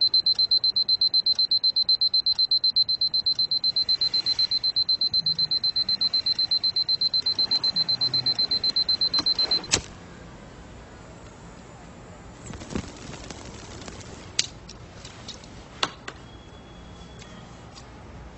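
Electronic alarm clock beeping: a high-pitched beep repeated rapidly, about seven times a second, for nearly ten seconds, then cut off with a click. A few soft clicks and knocks follow.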